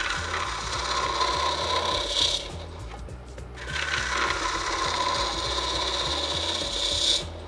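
High-speed-steel tip on a hollowing bar cutting inside a spinning fiddleback maple vessel on a wood lathe, opening up the entry hole: two cutting passes with a short break between them, the second one longer.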